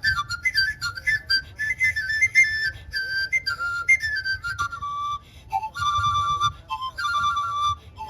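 Solo vot, the Isan bamboo circular panpipe, playing a fast ornamented melody of quick runs and trills, then settling into longer held notes, with a brief break about five seconds in.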